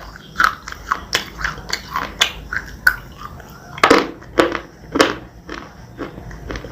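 A person biting and chewing a crunchy white bar close to the microphone: a run of sharp, crackly crunches, with the two loudest bites about four and five seconds in.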